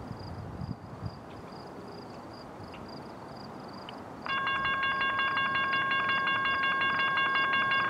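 Siemens Charger passenger locomotive sounding its air horn, a steady chord of several notes that starts about halfway through and holds on as the train approaches.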